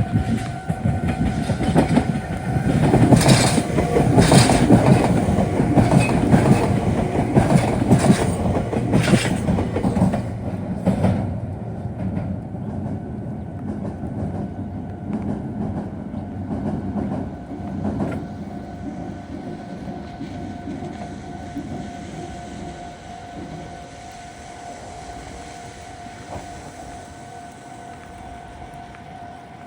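A Meitetsu train runs through the Biwajima junction level crossing: loud rumbling with wheels clacking over the rail joints and points for about the first ten seconds, then fading away. The level crossing alarm keeps up a steady tone throughout.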